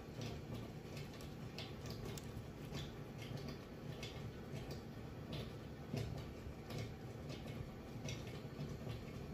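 Light, irregular ticks and scrapes of a metal fork's tines pressing a pattern of lines into a sugar-coated biscuit dough round held in the palm, over a steady low hum.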